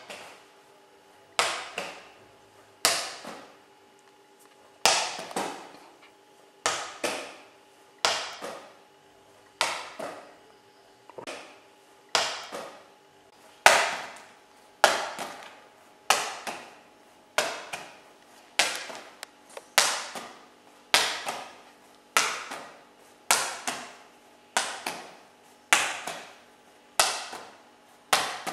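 Rubber playground ball bouncing, about one hit a second, each hit a sharp knock with a short hollow ring that dies away. A faint steady hum lies underneath.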